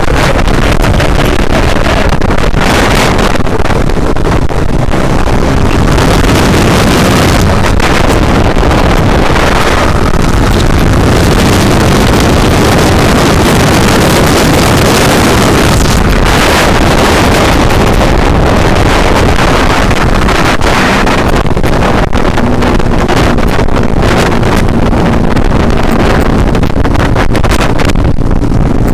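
Motorcycle riding at speed: heavy wind noise on the microphone over the engine's steady drone, the engine note showing through more clearly near the end.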